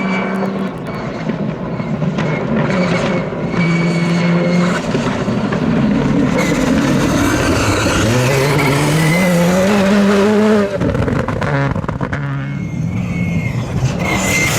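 Rally car at full throttle, its engine note stepping up through the gears and getting louder as it closes in. The rising note breaks off sharply near the end as the throttle lifts, then picks up again.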